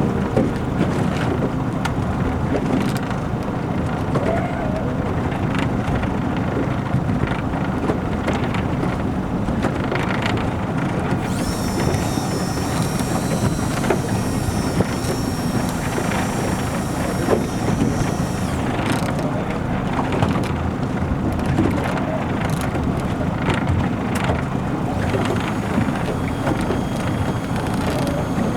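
A fishing boat's engine runs steadily under way, with wind buffeting the microphone. A higher hiss joins for several seconds in the middle.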